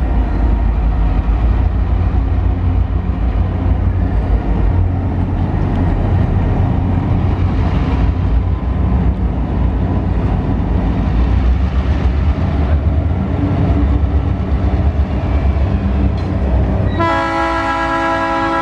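TasRail diesel locomotives 2054 and 2051 hauling a freight train, their engines running with a deep, steady rumble. About seventeen seconds in, the locomotive horn sounds a chord of several notes and holds it.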